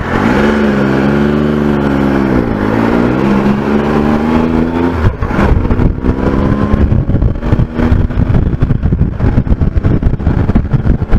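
Triumph Explorer motorcycle's three-cylinder engine pulling at low speed, its note rising, dipping about two seconds in and rising again. About five seconds in, a rough rushing rumble of wind on the microphone takes over, with the engine fainter beneath it.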